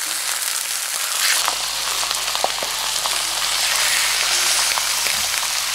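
Raw mutton leg slices sizzling in desi ghee in a hot cast iron skillet as more pieces are laid in, with scattered crackles and pops: the meat starting to sear.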